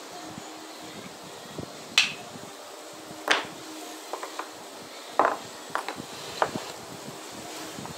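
A handful of short, separate scratchy rubbing strokes as a small hand-held pad, sandpaper by its look, is scraped across a plywood panel, over a steady background hiss.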